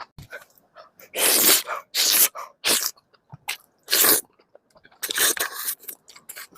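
Close-miked eating noises as a person eats mixed rice: about five loud, short, hissy bursts of mouth sounds, a few small clicks between them.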